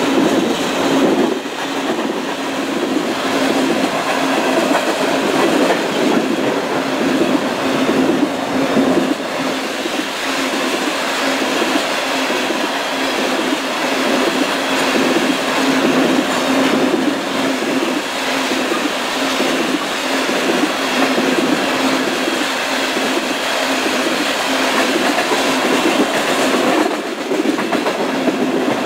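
Crude oil tank cars of a freight unit train rolling past, steel wheels clicking in an even rhythm over the rail joints, with a steady hum under the rolling noise.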